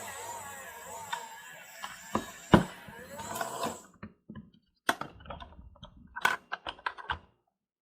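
Toy washing machine running with a steady whir and hiss, cutting off suddenly about four seconds in, followed by a string of small plastic clicks and knocks.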